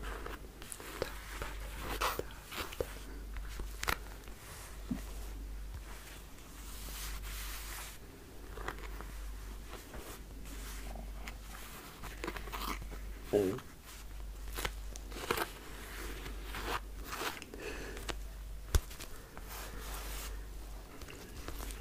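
Long fingernails tapping and scratching on a wallet's faux-leather surface: irregular clicks and short scrapes, with a couple of sharper clicks.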